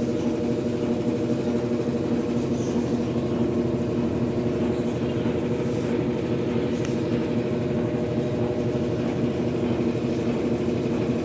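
Washing machine running with a steady motor hum. Its load has gone badly unbalanced, and a strange noise comes from underneath near the motor.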